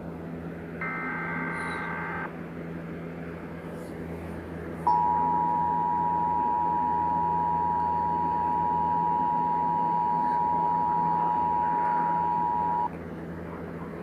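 Emergency Alert System tones: a short burst of the buzzy digital header data about a second in, then after a pause the EAS attention signal, two steady notes sounding together held for about eight seconds and cutting off sharply. A low hum runs underneath.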